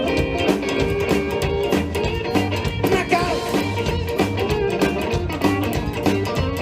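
Live rock and roll band playing an instrumental passage: electric guitar over bass and a steady drum beat.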